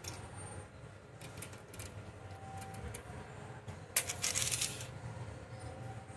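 Steel tape measure being handled against a metal machine vise: a few light clicks, then a sharp click about four seconds in and a brief rattling scrape as the tape blade is drawn further out.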